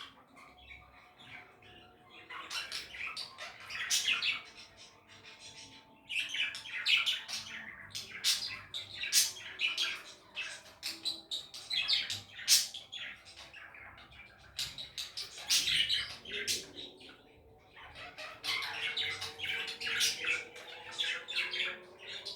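Budgerigars chattering and warbling: rapid chirps, squawky notes and clicks in bouts of a few seconds, with short lulls between them.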